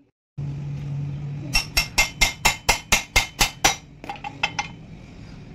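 About ten sharp hammer blows, some four a second, on a steel axle rod driven into a wax-packed 6001 crankcase bearing, then three lighter taps. The blows press the candle wax against the bearing to push it out of the motorcycle's engine case.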